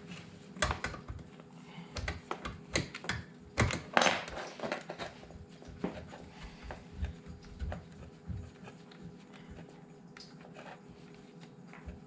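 Wrench clicking and knocking on the metal leveling legs and frame under a dishwasher, irregular sharp clicks that come thick in the first few seconds and then thin out.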